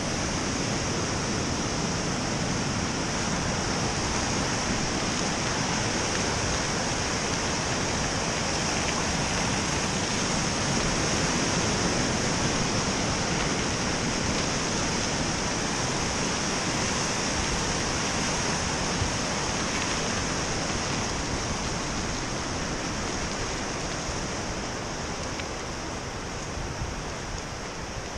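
Steady rushing roar of a fast whitewater mountain river, easing slightly near the end.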